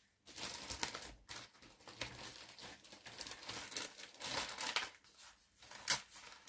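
Handling of a portable home sleep-study kit's belts, cables and plastic sensors: irregular rustling with many small clicks, and one sharp click a little before the end.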